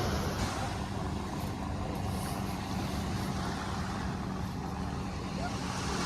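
Steady low rush of sea surf and wind buffeting the microphone, with a faint low hum underneath.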